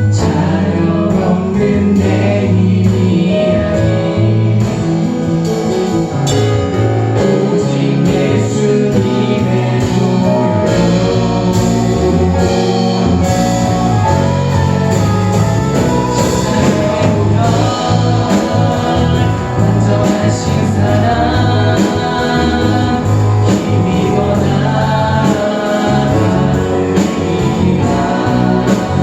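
Live worship band playing a gospel praise song with drums, guitar and singing voices.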